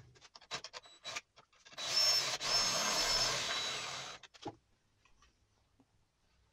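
Cordless drill driving a screw into plywood, running with a high whine for about two seconds with a brief stop partway through. It follows a few light handling clicks.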